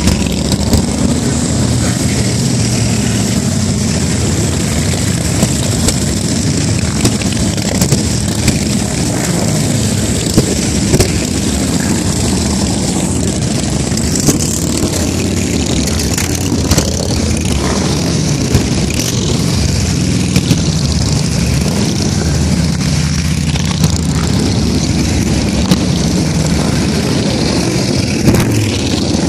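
A long procession of cruiser motorcycles riding past in a continuous, loud, overlapping engine rumble, with brief louder spikes scattered throughout.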